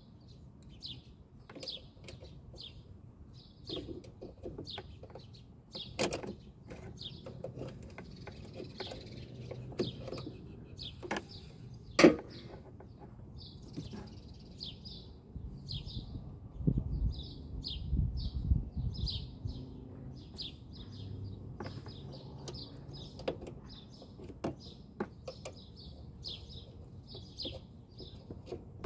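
A bird chirping over and over, about two short high chirps a second, over scattered clicks and knocks. One loud sharp knock comes about twelve seconds in, and a low rumble lasts a few seconds past the middle.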